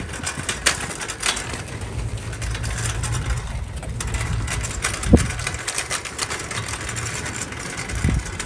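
Loaded wire shopping cart rolling over asphalt: the wheels rumble continuously and the metal basket rattles and clicks, with a sharper knock about five seconds in.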